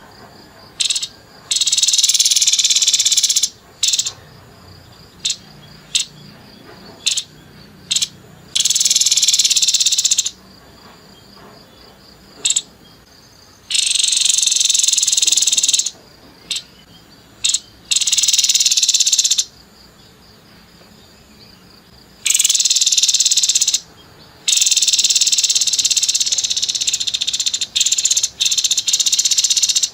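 Grey-headed babbler giving harsh, buzzy rattling calls in bursts of one to two seconds, with short sharp notes between them and a longer run of calls near the end.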